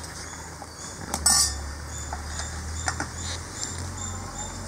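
Steel kitchenware being handled: a ladle and steel vessels clink and clank a few times, the loudest about a second in. Insects chirp faintly in the background at about two a second.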